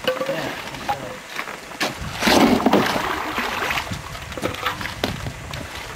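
Canoes and gear being handled in shallow water at a rocky landing: scattered knocks and bumps, with one louder noisy stretch about two seconds in.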